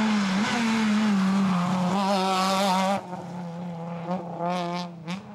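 Rally car driving past at speed with its engine at high revs. The sound drops suddenly about three seconds in, and the engine is heard revving again more faintly near the end.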